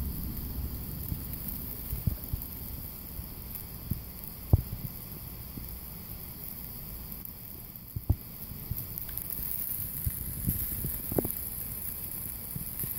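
Steady hiss of chicken and vegetables sizzling on a barbecue grill, broken by a few sharp clicks and pops, the loudest about four and a half seconds in.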